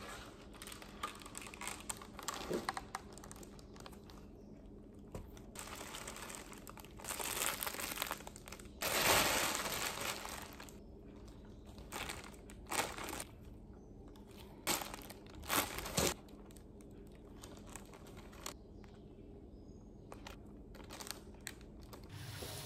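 Plastic grocery bags and wrapping crinkling and rustling as groceries are unpacked and handled, in irregular bursts. The loudest stretch comes about nine seconds in.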